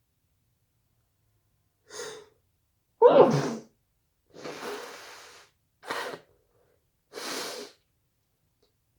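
A person sneezing from a tickle in the nose: a short intake of breath about two seconds in, then one loud, voiced sneeze, followed by three shorter breathy sounds.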